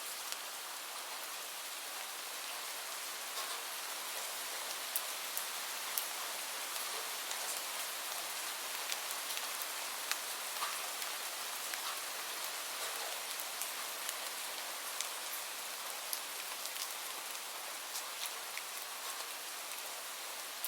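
Steady rain falling, an even hiss with scattered louder drops ticking sharply on a surface.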